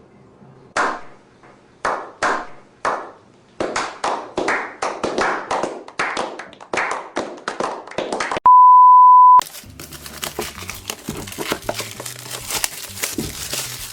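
A run of sharp crinkling rips, coming faster as they go: plastic wrapping being torn off a sketchbook. Just past halfway, a loud, steady one-second beep cuts in, and background music follows.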